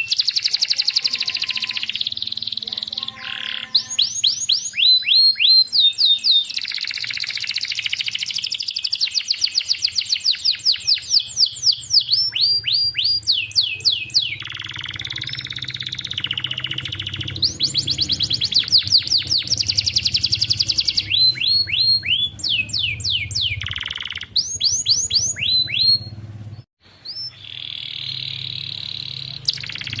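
Domestic canary singing: long runs of rapid, repeated downward-sweeping notes alternating with rolling trilled phrases, with a short break a few seconds before the end.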